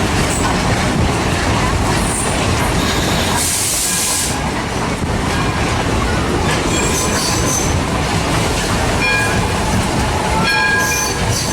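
Steam excursion train rolling along, heard on board as a steady rumble of wheels on track. A brief high hiss comes about three and a half seconds in, and short, repeated high-pitched squeals come from about halfway on.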